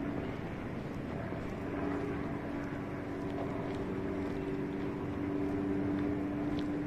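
A motor drones at a steady pitch over a steady background rush, with the hum coming in about one and a half seconds in.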